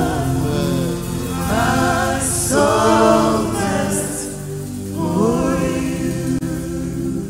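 Slow gospel worship song: a male lead singer and female backing singers on microphones, joined by the congregation, singing long drawn-out phrases over sustained backing chords.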